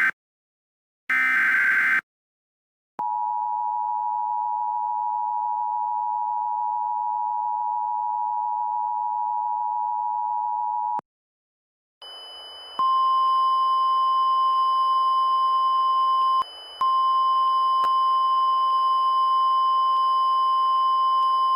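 Emergency Alert System signal: a last brief SAME data-header burst, then the two-tone EAS attention signal held steady for about eight seconds. After a pause comes a single steady alert tone over radio static, typical of the NOAA Weather Radio warning alarm, with a short dropout partway through. Together these announce a flash flood warning.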